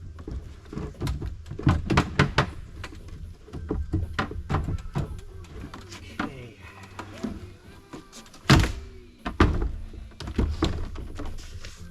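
A string of knocks and thunks from hard plastic parts being handled, the two loudest thumps about a second apart near the end, with background music under them.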